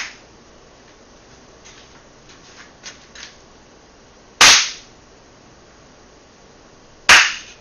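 Two sharp single hand claps, one about halfway through and one near the end, each ringing briefly in the room; they are test claps for a directional clap finder to locate. A few faint ticks come before the first clap.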